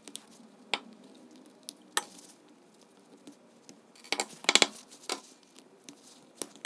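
Diagonal cutters snipping the metal terminal tabs off an old wax-filled paper capacitor, heard as a few separate sharp clicks with small knocks and scrapes between them. The loudest is a quick cluster of clicks about four and a half seconds in.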